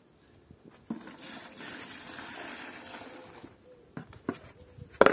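Liquid poured from a small bowl into a bucket, splashing steadily for about two and a half seconds. A few knocks follow, with a sharp clatter near the end.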